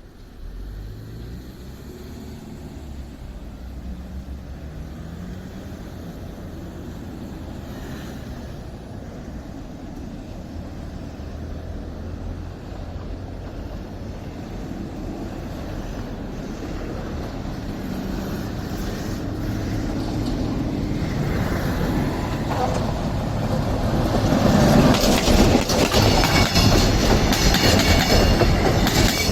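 A train approaching along the track, its low running sound building steadily and becoming loud over the last few seconds with a dense clatter of wheels on rail.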